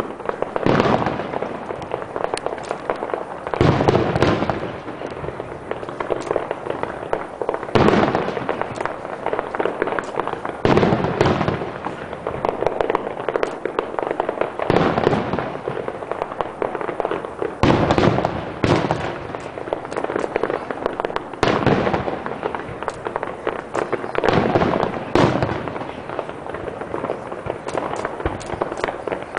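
Aerial fireworks display: shells bursting one after another, a loud boom every few seconds, with continuous crackling in between.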